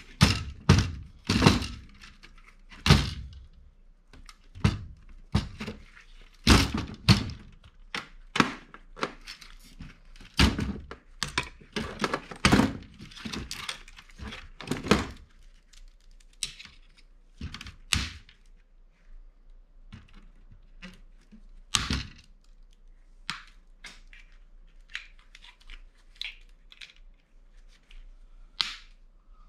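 Knocks, clunks and clicks of a MICROS point-of-sale touchscreen terminal being dismantled by hand, its metal chassis and circuit boards bumped and parts pulled loose. The knocks come thick and loud at first and grow sparser and fainter in the second half.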